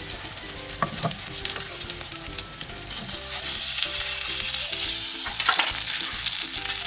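Pieces of seer fish frying in hot oil in a pan, a steady sizzle that grows louder about three seconds in. A few light clicks of a utensil against the pan.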